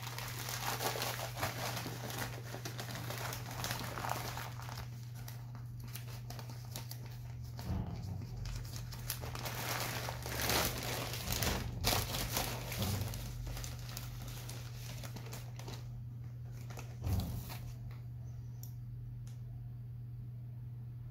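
Clear plastic bag of kiryuzuna bonsai substrate crinkling and rustling as it is handled and opened, the grains shifting inside, in irregular bursts that die down near the end. A steady low hum runs underneath.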